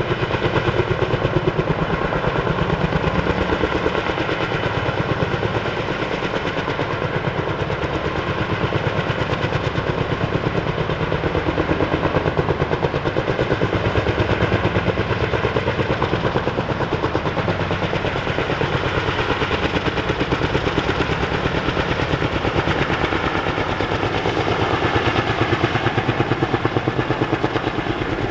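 Helicopter rotor blades chopping in a rapid, even pulse, with a steady engine whine running alongside.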